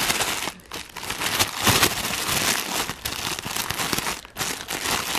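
Clear plastic packaging bag crinkling as it is handled by hand, in irregular crackles broken by a few short pauses.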